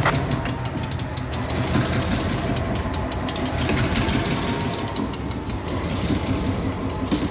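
EMD GP15-1 diesel locomotive moving slowly with a cut of empty gondola cars. Its diesel engine runs steadily with a low drone, under many sharp clicks from the wheels on the rail.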